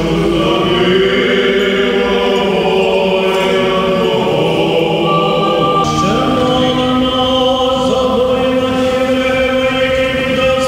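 Orthodox funeral chant sung by several voices in long held notes, moving to a new note about six seconds in.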